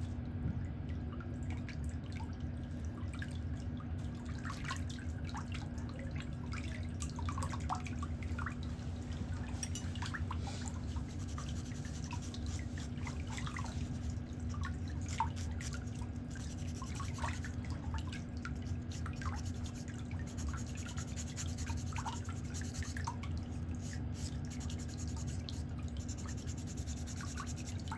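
Water dripping in a pedicure foot soak, with scattered soft ticks over a steady low hum.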